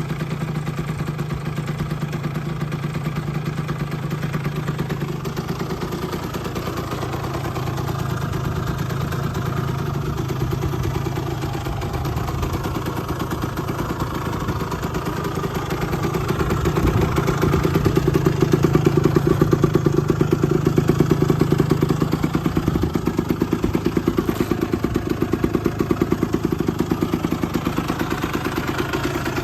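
Honda NS-1 (AC12) 49cc two-stroke single idling steadily. Past the middle it runs louder for several seconds, then settles back to idle. It runs with no abnormal noises.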